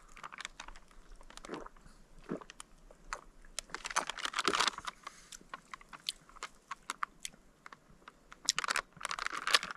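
A person drinking in gulps from a plastic beverage bag: a series of soft swallows and small mouth clicks, with faint crinkling of the plastic.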